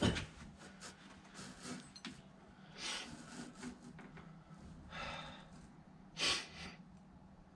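A person's breathing: three short, hissy breaths or sniffs, with a few faint clicks of handling and a low steady hum underneath.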